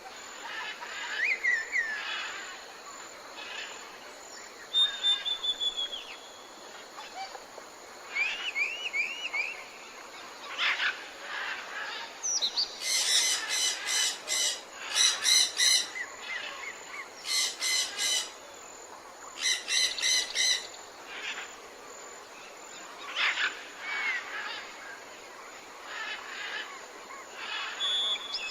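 Several birds singing and calling over a steady background hiss: a falling trill about five seconds in, a quick run of short rising whistles, then a series of four harsh, buzzy calls in the middle.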